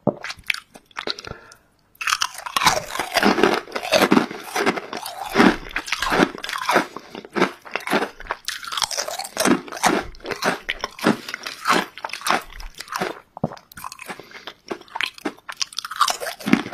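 Ridged potato chips being bitten and chewed: a dense run of crisp crunching, with a short lull about two seconds in.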